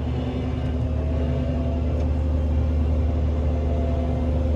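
Combine harvester running steadily: a low, even engine drone with a steady hum, joined about a second in by a higher steady tone.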